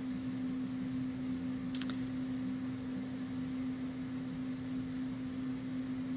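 Quiet room tone with a steady low hum, and one short click about two seconds in.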